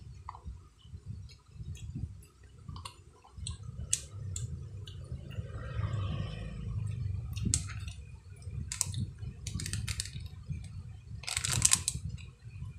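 Close-up eating sounds: chewing, with scattered clicks and small rustles as a skewer picks fried street-food balls out of a plastic cup. A louder burst of noise comes near the end.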